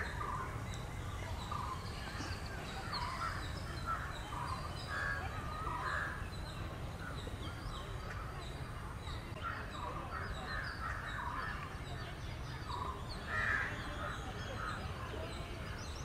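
Many short bird calls one after another from the trees, with fainter higher chirps among them, over a steady low rumble; a louder call comes right at the start and another about thirteen seconds in.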